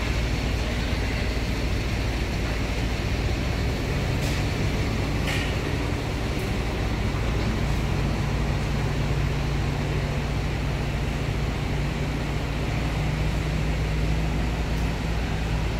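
Heavy-haul truck and multi-axle low-bed trailer rolling slowly past under a steel barge hull: a steady diesel engine drone with tyre and road noise.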